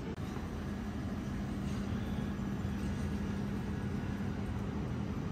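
Steady low hum over a constant rushing noise from a row of refrigerated vending machines running.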